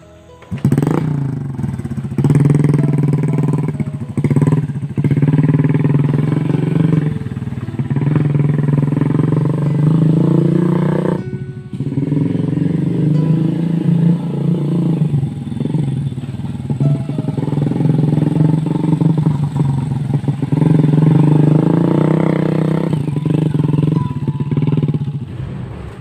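Small motorcycle engine hauling oil palm fruit, revving up and down under load. It starts about a second in and drops away briefly near the middle.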